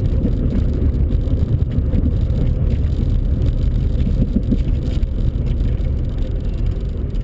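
Steady low rumble of a car driving along: road and engine noise.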